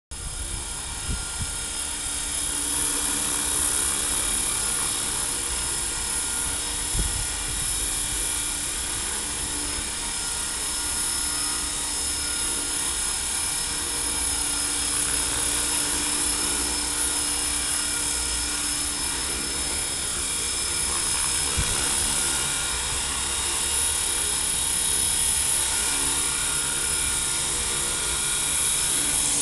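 HK450GT electric RC helicopter running, its brushless motor and gears making a steady high-pitched whine over the hum of the spinning main rotor.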